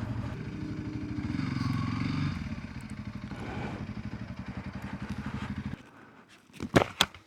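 Honda CRF300L Rally's single-cylinder engine running at low speed, getting quieter about two seconds in, then switched off so that it stops suddenly near six seconds. A few sharp clicks follow near the end.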